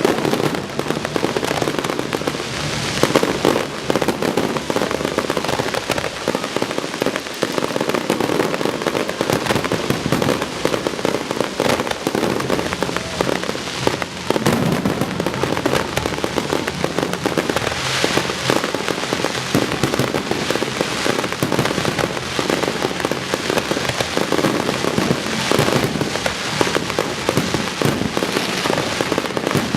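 Fireworks display: a dense, continuous barrage of bursting and crackling shells with no pause.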